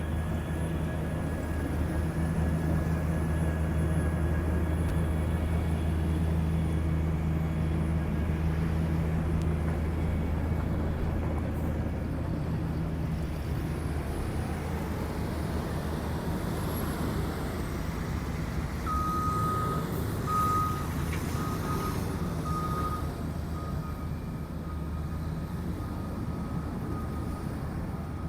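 Heavy diesel road-construction machine running steadily with a deep engine hum. About two-thirds of the way through, a reversing alarm sounds a row of short beeps.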